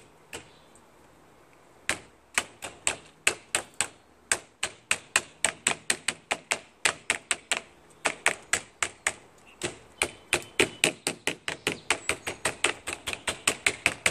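Claw hammer tapping lightly on a white plastic pet-door frame, driving its pegs into their holes through the screen mesh. A fast, uneven run of sharp taps, several a second, after a short pause about half a second in.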